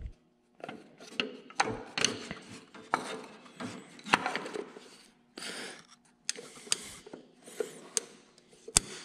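Hands and a screwdriver working around a tractor's distributor and ignition parts: irregular clicks, small knocks and scraping of metal parts and tools, with no engine running.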